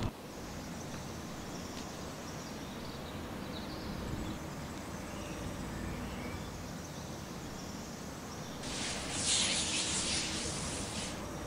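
Quiet outdoor ambience with a steady low background noise and faint bird chirps. About nine seconds in, a loud hiss swells up and lasts about two seconds.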